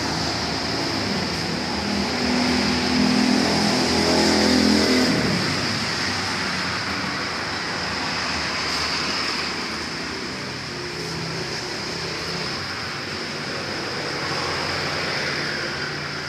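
Steady hiss of a running home aquarium, with air bubbles rising through the tank. An engine revs up over the first few seconds, is loudest about four to five seconds in, then fades.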